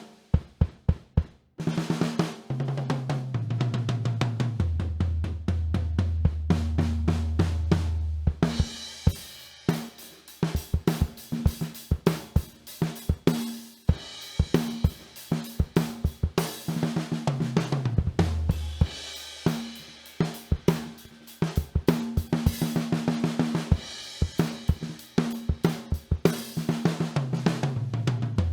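Pearl Export drum kit played in a sound test: quick strokes, a fill stepping down the toms to repeated low floor-tom hits, then beats with bass drum, snare, hi-hat and crashing cymbals from about nine seconds in. Further fills run down the toms near the middle and near the end.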